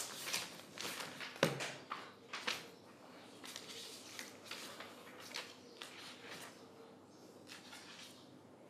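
Pages of a book being leafed through: a run of short paper rustles and flicks, with one louder knock about a second and a half in.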